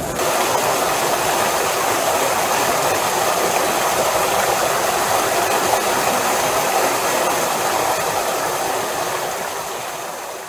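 Water of the Fountain of the Four Rivers pouring and splashing into its stone basin: a steady, even rushing of water that fades out near the end.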